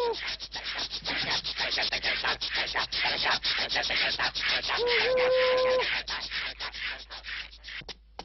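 Rapid, dense scuffing and pattering of many shuffling feet, a cartoon sound effect for a line of madmen, with one held wailing cry about five seconds in. The scuffing thins out near the end.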